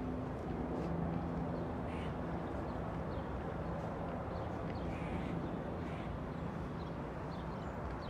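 Outdoor city-park ambience: a steady low rumble of distant city traffic, with a few short bird calls about two, five and six seconds in.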